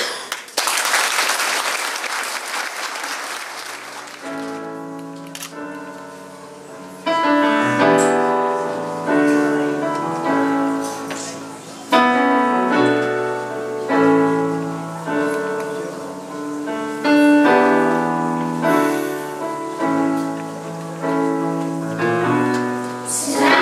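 Audience applauding for about four seconds, then a piano playing an introduction, with chords struck and left to fade, ahead of a children's choir.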